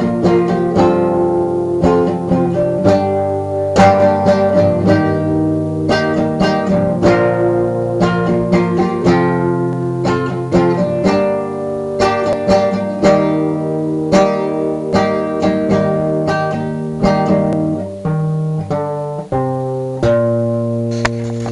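Guitar with a capo playing a melody of plucked notes over ringing chords, at a steady, lively pace.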